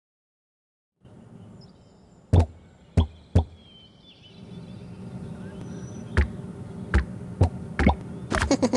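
A series of sharp knocks and taps, three close together early and more coming quicker near the end, over a low steady hum.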